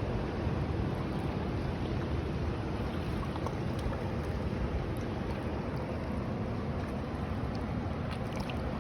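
Ocean surf washing on a beach, a steady rushing noise with wind on the microphone.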